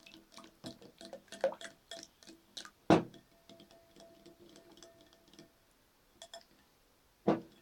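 A spoon stirring slime in a bowl, clicking against the bowl in irregular ticks, with a sharp knock about three seconds in and another near the end.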